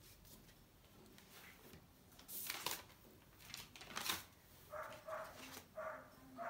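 A few faint scrapes or rustles, then, in the second half, short animal calls repeated about three times a second, faint under the room tone.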